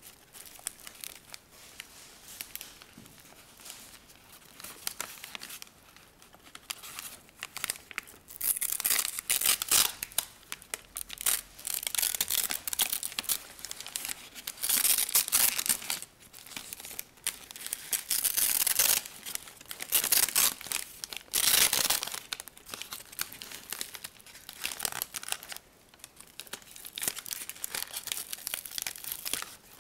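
Brown paper bag crinkling and tearing as hands pull it open and off a potted orchid, in loud irregular bursts through the middle. Near the end, softer crinkling of plastic wrap around the pot.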